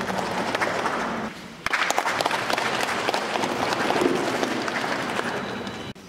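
Audience applauding, a dense patter of many hands clapping; it drops out briefly about a second and a half in, then carries on.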